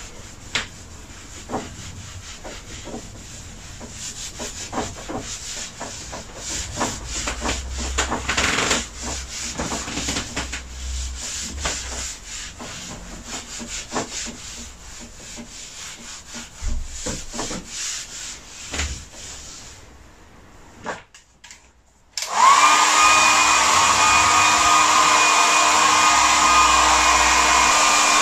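A hand rubbing and wiping across a painted board, with irregular scuffs and scattered light taps. About 22 seconds in, after a short quiet spell, a handheld hair dryer switches on and runs steadily with a whine, drying the freshly glazed paint.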